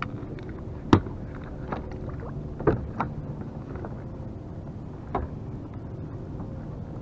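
Steady low wind and water noise around a fishing kayak, with a handful of sharp knocks and clicks from gear being handled on board; the loudest comes about a second in.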